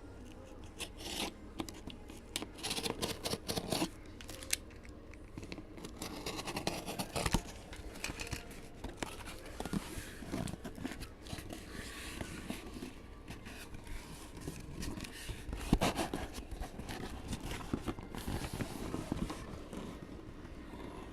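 Scissors or a blade cutting, and hands tearing, the plastic seal and cardboard of a sealed case of trading cards: irregular scraping, rustling and tearing with scattered knocks, the loudest about three-quarters of the way through.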